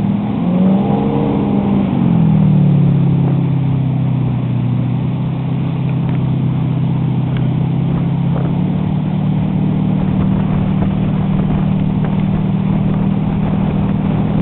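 Motorboat engine running steadily while towing a tube at speed; its pitch rises and falls about a second in, then holds. The wake's rushing water sounds underneath.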